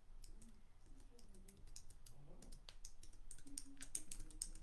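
Soft, irregular taps of typing on a computer keyboard.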